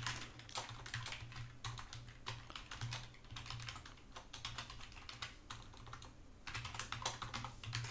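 Typing on a computer keyboard: a run of quick, irregular keystrokes, with a faint steady low hum underneath.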